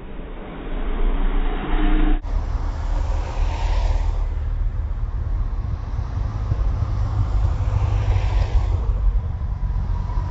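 Yamaha FJR1300 sport-touring motorcycles riding past one after another, their engines making a steady low rumble. The sound swells twice, about three and a half and eight and a half seconds in, as bikes pass close, and it changes abruptly about two seconds in where the footage cuts.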